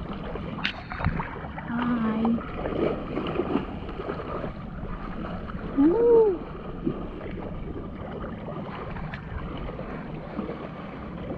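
Shallow seawater sloshing and lapping around a person wading, with steady noise underneath. About six seconds in comes a short rising-and-falling voiced 'ooh'.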